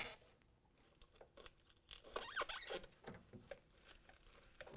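Pick tool forced through a carpet-like bed rug liner, a brief squeaky scraping about two seconds in, with faint rubbing and small clicks around it.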